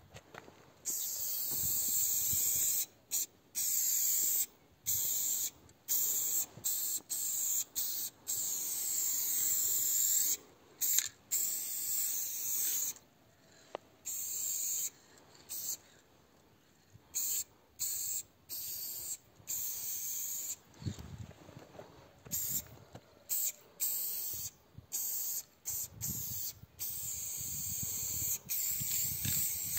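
Aerosol spray paint can spraying in many separate bursts of hiss, some short and some lasting a few seconds, with brief pauses between them.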